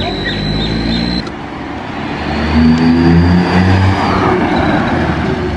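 Volkswagen Polo accelerating with a small exhaust whistle fitted in the tailpipe, giving a steady high whistle over the engine. The sound breaks off about a second in. Then the engine revs up again, the whistle rises and holds with it, and it fades near the end.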